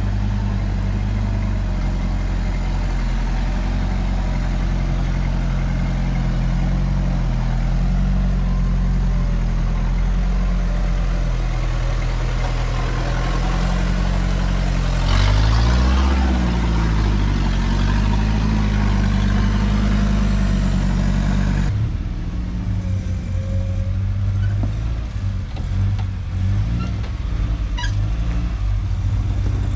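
Off-road trucks' engines labouring at low speed while crawling up a rock step, with one rev that rises and falls about halfway through. About two-thirds of the way in the sound changes abruptly to another truck's engine, choppier, with a few light clicks near the end.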